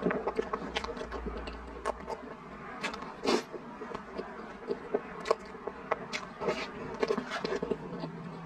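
Mouth sounds of eating soft whipped-cream cake, with wet smacking and chewing, mixed with a metal spoon scraping cream from a plastic tub. These come as irregular short clicks and crackles, the sharpest a little over three seconds in.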